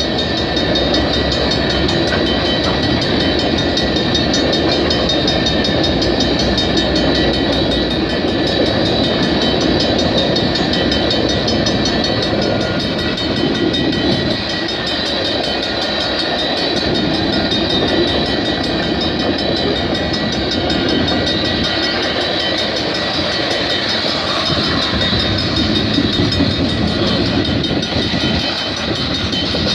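Canadian Pacific freight train cars rolling past: a loud, steady rumble of steel wheels on rail, with thin steady high tones running through it.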